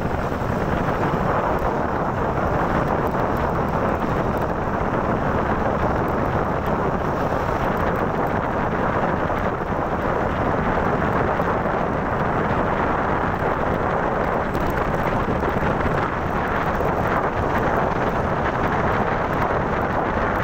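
Steady wind rush buffeting the microphone of a camera held up by a rider on a moving motorcycle, blended with the motorcycle's riding noise.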